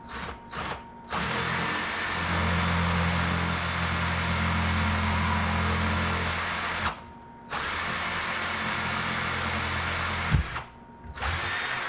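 Cordless drill boring a 3/32-inch pilot hole through two clamped pieces of aluminium angle. After two short trigger blips the motor runs with a steady high whine in two long runs split by a short pause, with a sharp knock as it stops about ten seconds in and a brief last burst near the end.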